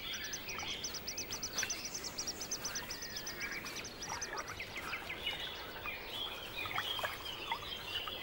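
Wetland birds calling, with many varied chirps throughout and a fast run of high, evenly repeated peeps, about eight a second, that stops about four and a half seconds in.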